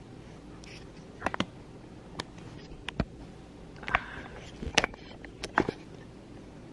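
A scattered series of about ten sharp clicks and light knocks, some in quick pairs, over a steady low room hum: small objects being handled.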